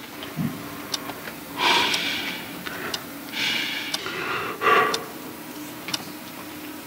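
A man crying: sniffling and sobbing breaths, three breathy gasps about two, three and a half and almost five seconds in.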